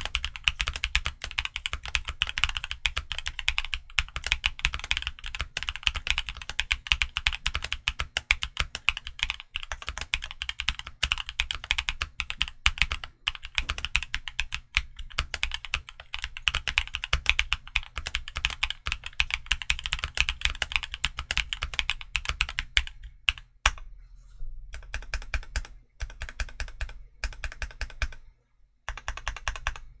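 Mechanical keyboard with KPRepublic Black Cherry Pie (BCP) pre-lubed 60 g linear switches, a Portico Black Label case and Domikey Snake Chaser keycaps, typed on fast and without a break. From about 23 s in, the keystrokes thin out into separate presses with short pauses.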